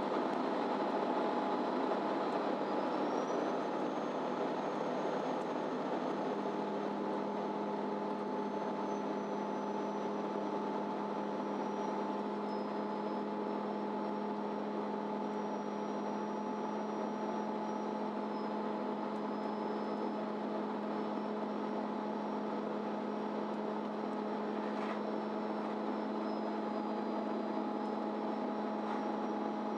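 MAN Lion's City Ü diesel bus heard from inside the passenger cabin, its engine running at a steady pitch. A faint high whine shifts up and down in pitch, and there is a single click about 25 seconds in.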